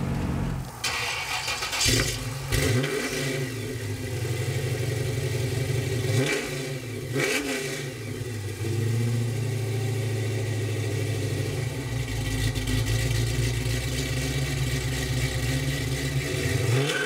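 Classic Chevy Nova's engine idling with a deep rumble, blipped three times in quick rev-ups and drops about two, six and seven seconds in, then settling into a steady idle.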